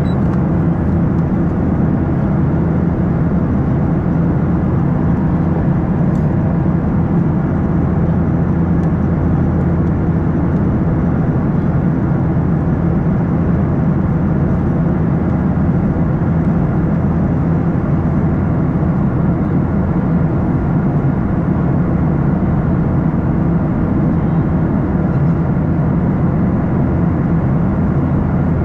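Steady cabin noise of a Boeing 737-800 in flight, heard from a window seat beside the wing: its CFM56-7B turbofan engines running and air rushing past the fuselage. The sound is an even, low rumble.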